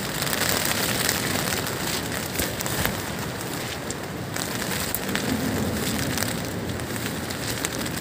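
Rain falling on a tent's fabric, heard from inside the tent: a steady hiss with scattered ticks of single drops.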